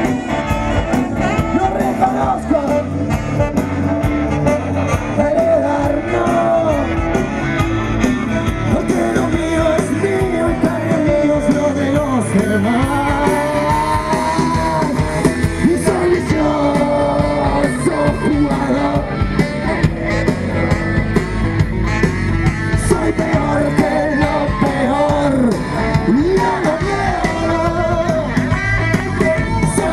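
Rock band playing live, recorded from among the audience: a dense, steady mix of drums and guitars with a wavering melody line over them.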